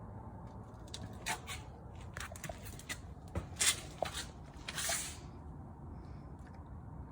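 Lexus GX460 suspension popping and clicking while the SUV turns: a run of sharp pops from about one to five seconds in, the loudest near the middle, over a low steady rumble.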